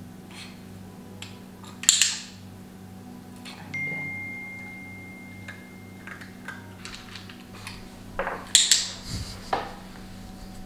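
A silver push-down call bell is struck once, about four seconds in, giving a single clear ding that rings on and fades over about two seconds. Two short sharp noises come before it, about two seconds in, and again near the end.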